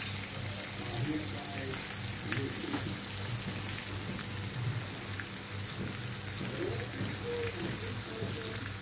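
Red snapper fillets frying in oil in a hot pan: a steady sizzling hiss with scattered small crackles.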